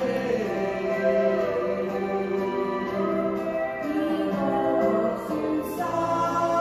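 A small group of voices singing a slow gospel song in harmony, a woman's voice leading through a microphone, with long held notes.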